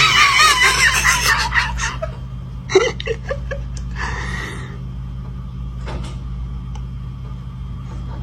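Shrill, high-pitched laughter that stops about two seconds in. A few short knocks or clicks follow, over a steady low hum.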